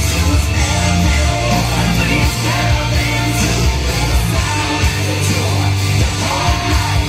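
Loud rock song with a singer, played as backing music for a live stage act, with a steady bass line and beat.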